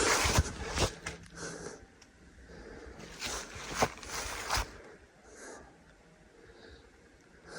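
Footsteps of a hiker in boots on a woodland trail: a few irregular crunches and scuffs, with soft breathing, that die away for the last couple of seconds.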